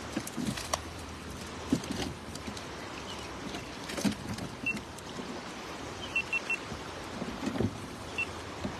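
Shallow stream water running steadily, with scattered soft slaps and knocks as fish flop on wet rock and are handled out of a cast net into a plastic crate. A few short high chirps sound in the second half.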